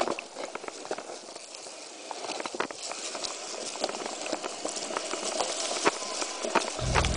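Mountain bike riding down a rough dirt trail: tyres crunching over stones and gravel, with the bike rattling and clicking over the bumps. Music comes in near the end.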